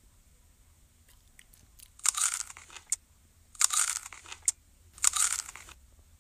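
Three short, loud crunching noises, about a second and a half apart, with a few sharp clicks between them.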